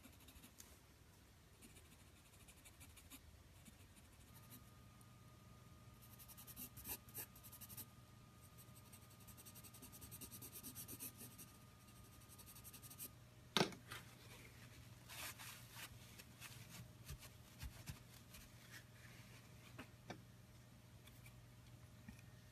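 Graphite pencil scratching and shading on drawing paper, faint and uneven, with a sharp click a little past the middle. A faint steady hum runs underneath.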